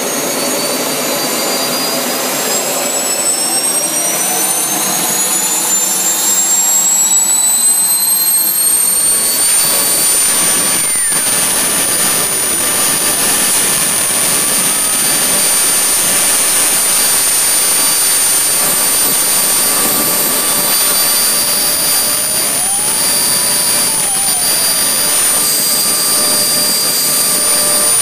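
Kingtech K-180 model jet turbine running on diesel. It makes a high whine over a steady rush of exhaust. The whine climbs in pitch over the first nine seconds or so as the turbine speeds up, then holds steady.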